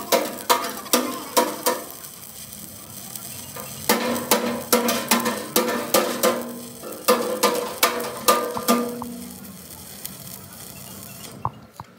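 Three bursts of rapid metal-on-metal strikes, each blow followed by a ringing tone, typical of a hammer striking steel.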